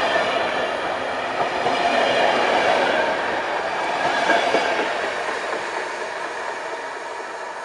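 Departing passenger train's coaches rolling past, wheels running on the rails with some clicking over the joints. The sound fades over the last few seconds as the rear coach pulls away.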